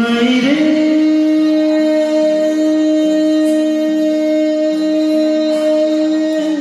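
A live song with voice and electronic keyboard through a microphone. One long, steady note rises in two small steps at the start, then is held for about six seconds.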